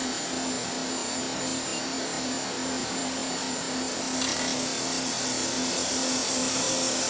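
Steady machinery hum and hiss beside a wire butt-welding machine, growing louder and hissier about four seconds in.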